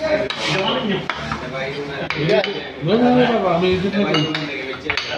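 Plates and cutlery clinking on a restaurant table as dishes are handled, with a few sharp clinks. Voices talk over it, loudest about three seconds in.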